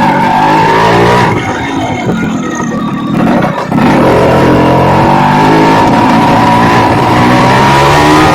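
Two-stroke Suzuki Samurai motorcycle engine running hard under throttle while riding. The revs drop briefly about halfway through, then climb steadily again.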